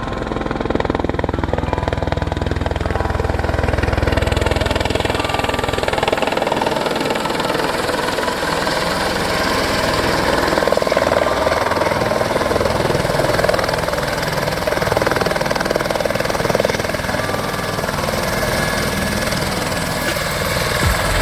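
Helicopter turbine and rotor running loud and steady, a continuous mechanical drone with a heavy low rumble in the first few seconds.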